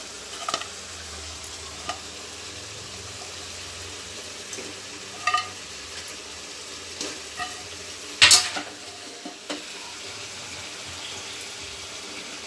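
Spiced yogurt gravy sizzling in a kadai while a metal spatula stirs, with several clinks and scrapes of the spatula against the pan; the loudest knock comes about eight seconds in.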